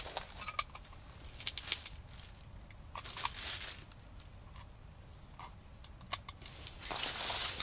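Dry groundbait being scooped and packed by hand into a small bait feeder: scattered light clicks and short rustles, with a longer rustle near the end.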